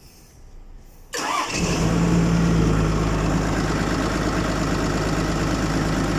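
Isuzu 6BG1 inline-six diesel in a forklift starting suddenly about a second in, then running at a steady idle.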